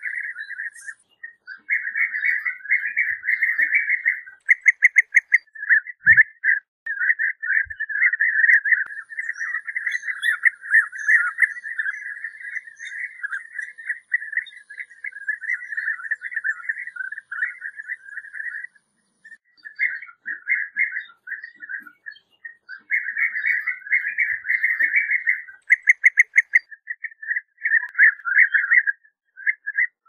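A flock of European bee-eaters calling, many rolling, liquid calls overlapping in a continuous chatter. It pauses briefly twice past the middle, and quick rattling trills come in around five seconds in and again near the end.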